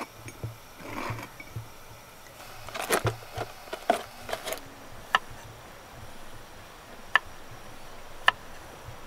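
Light clatter and knocks of small objects being handled, with a cluster of knocks about three seconds in. After that come single sharp knife strokes on a wooden cutting board, every second or two.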